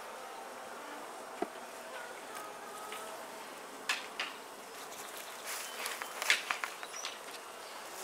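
Honeybees buzzing around an open top bar hive: a steady hum with short tones that slide in pitch. From about four seconds in, a run of sharp wooden knocks and clacks as the top bars are handled.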